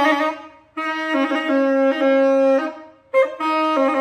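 Saxophone played by a beginner: long blown notes that step between two or three pitches as different keys are pressed, broken by two short pauses for breath.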